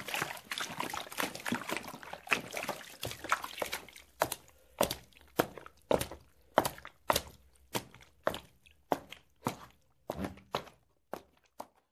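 A dense clatter of sharp taps that thins, about four seconds in, into single sharp taps roughly two a second, tailing off near the end.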